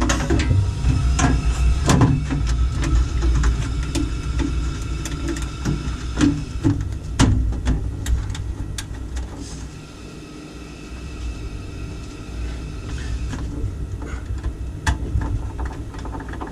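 Clicks and knocks of the front casing cover being refitted to an Ideal Independent Plus C30 combi boiler, most of them in the first half, over the steady low hum of the running boiler.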